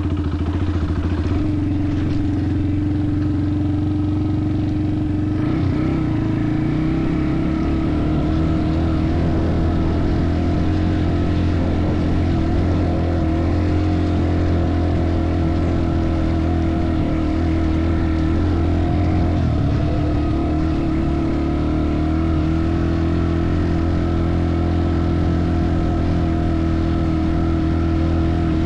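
Small engine running at a steady pitch, typical of a trail motorcycle being ridden at an even pace.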